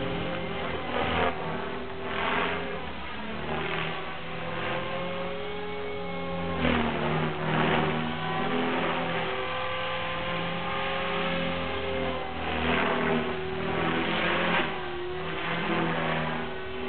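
Align T-Rex 500 electric RC helicopter flying aerobatics: a steady whine from the motor and rotor that drifts slightly in pitch, with a loud whoosh of the rotor blades about once a second as it flips and rolls.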